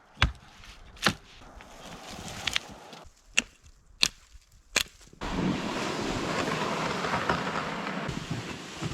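Axe chopping a small dead spruce: about six sharp strokes roughly a second apart, then a steady rushing noise from about five seconds in.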